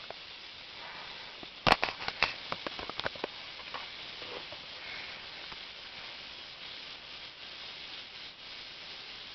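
A quick run of about a dozen sharp clicks and taps, the first the loudest, about two seconds in, then only a steady faint hiss.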